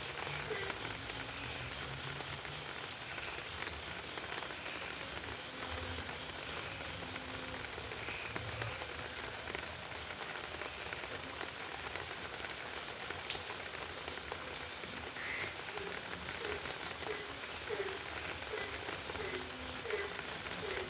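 Steady rain falling, with individual drops ticking sharply through it. A frog croaks in a repeated series of about two calls a second near the start and again over the last few seconds.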